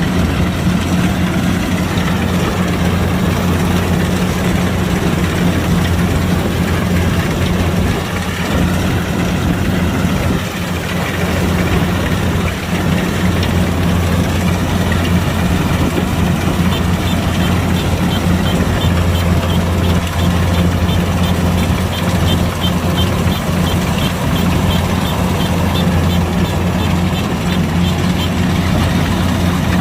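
Kubota DC105X combine harvester running steadily: a constant diesel engine drone under a dense mechanical noise.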